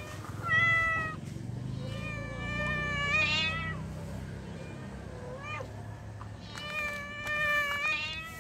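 A tomcat in heat yowling at a female cat: four drawn-out calls, a short one about half a second in, a long wavering yowl a couple of seconds in, a brief call midway and another long yowl near the end.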